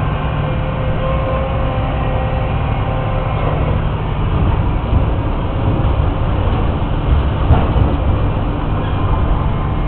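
Tracked excavator's diesel engine running steadily under load as its arm swings and lowers, with a thin whine in the first couple of seconds and a single clank past the middle.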